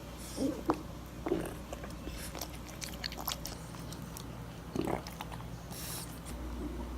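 French bulldog chewing, a run of small irregular wet clicks and smacks.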